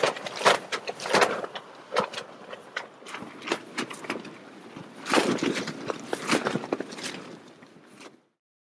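Tent fabric flapping and snapping in gusting wind: irregular sharp cracks, with a stronger gust rushing about five seconds in. It fades out near the end.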